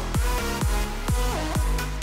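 Electronic dance music with a steady thumping kick drum about twice a second under synth tones and a deep bass.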